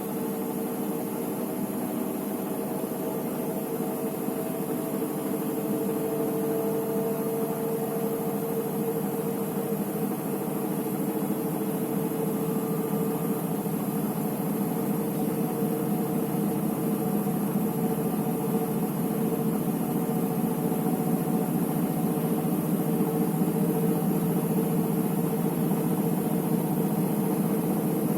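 Electrolux EWT 1377VIW washing machine running, a steady mechanical hum with several tones that grows gradually louder.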